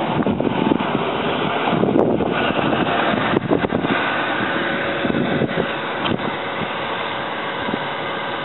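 Steady wind noise on the microphone over a low, even vehicle-like running sound, with a few soft irregular knocks from handling.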